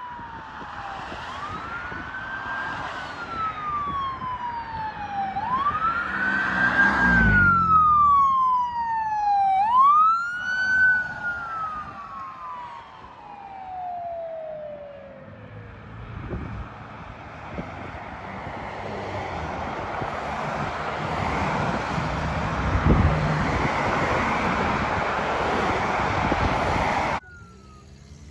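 Ambulance siren in a slow wail, rising and falling about once every four seconds, loudest a few seconds in as the ambulance passes and then fading away. Steady road traffic noise follows and grows louder, then cuts off sharply near the end.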